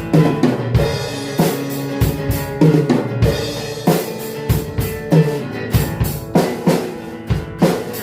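Band playing an instrumental passage of a rock song: a drum kit keeps a steady groove of kick and snare hits under bass and electric guitar, with no singing.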